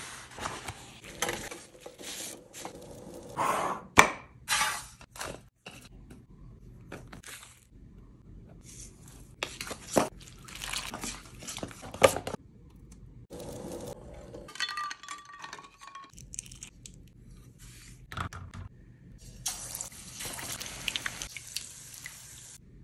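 A run of kitchen sounds: sharp clinks and knocks of a spoon against a stainless steel bowl as besan batter is stirred, and near the end a steady sizzle of hot oil frying in a pan.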